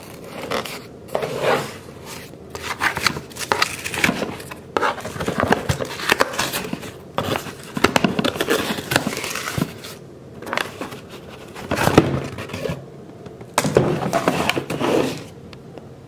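A taped cardboard shipping box being opened by hand: the sealed flap pulled back and the tape tearing, then cardboard scraping and rustling in irregular bursts with sharp knocks as the box is handled and its contents taken out.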